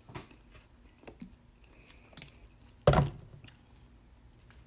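Light clicks and taps of a metal spoon against a plastic dumpling tray, with one louder thud about three seconds in.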